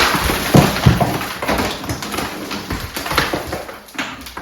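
Something being pulled loose from a wall during demolition: scraping and rattling with several knocks, loudest in the first second.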